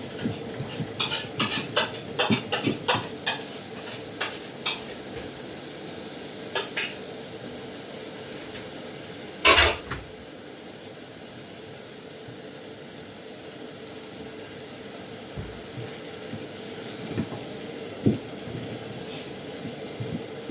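Metal pots and utensils clanking as food is stirred in a cooking pot, with a quick run of knocks early on and one loud clatter about halfway through. After that it goes quieter, leaving a steady faint hum and a couple of knocks near the end.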